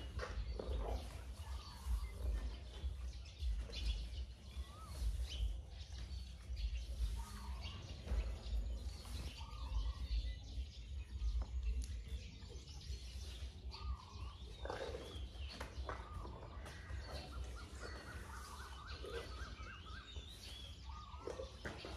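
Birds chirping now and then over a steady low rumble of outdoor background noise.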